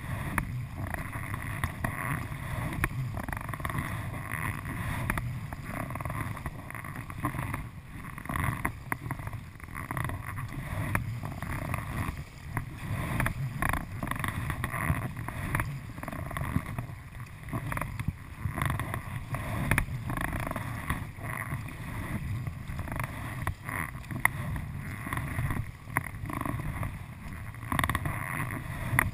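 Double-bladed kayak paddle strokes dipping and splashing in flat river water, with water sloshing against the kayak's hull, in uneven swells of loudness.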